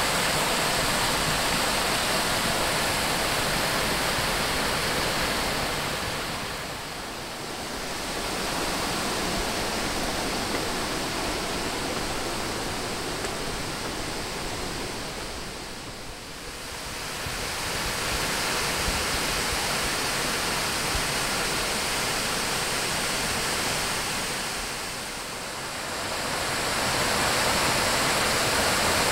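Crabtree Falls' cascades: a mountain creek rushing over rock in white water, running full after heavy rain. The steady rush dips and swells back three times.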